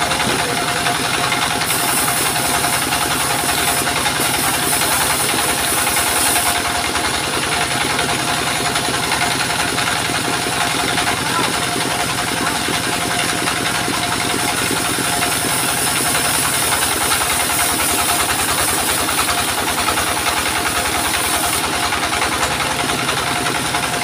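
Stationary single-cylinder diesel engine running steadily under load, driving a circular sawmill blade that is cutting through a soft waru log. A high hiss from the cut grows and fades over the engine's even, rapid firing pulse.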